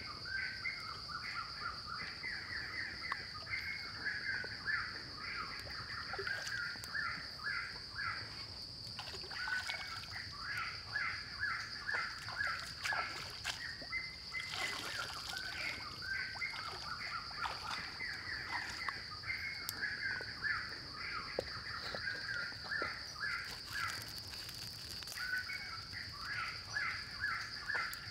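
Outdoor ambience: a bird calling in rapid runs of repeated chirping notes over a steady high insect drone. Water splashes now and then as hands work in a shallow stream.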